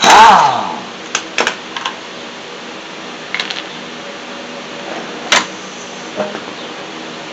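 Air impact wrench spinning off the last lug nut, a loud burst that winds down with a falling whine over about half a second. Then a few sharp clicks and knocks, the loudest about five seconds in, as the nut and wheel are handled.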